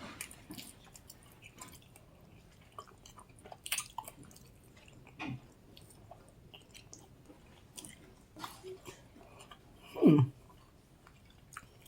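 Close-miked chewing and mouth clicks of someone eating, with a short falling "mm" about ten seconds in.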